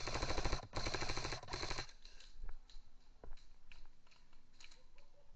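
Airsoft gun firing three quick full-auto bursts back to back, each a fast rattle of shots lasting about half a second, followed by a few scattered faint clicks.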